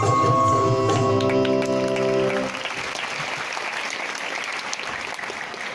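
Dance music ends on a long held chord about two and a half seconds in, while audience applause rises under it and then carries on alone.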